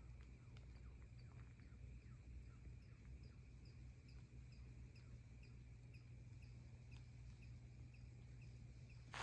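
Near silence: a faint low hum with faint, evenly spaced high chirps, about two or three a second.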